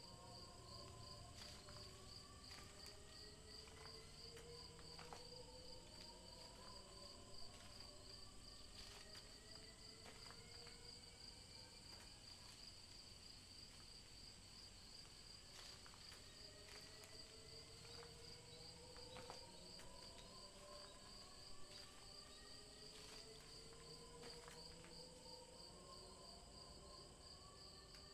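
Faint night ambience of crickets chirping in a steady, pulsing trill, with slow rising tones that repeat every few seconds underneath and a few faint clicks.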